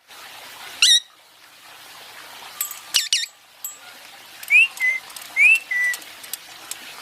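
Pet parrot whistling. A short, sharp rising call comes about a second in and a wavering whistle around three seconds; then twice a two-note whistle, a rising note falling onto a steady lower note. A steady hiss runs underneath.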